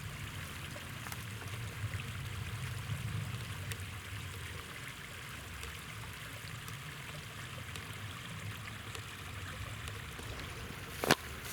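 Small brook spilling over a little waterfall, babbling steadily. A sharp knock near the end.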